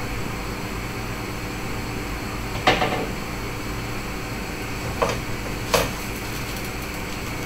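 Wooden spoon knocking against a frying pan three times: once about a third of the way in, the loudest, then twice close together near the end. A steady hiss and hum runs underneath.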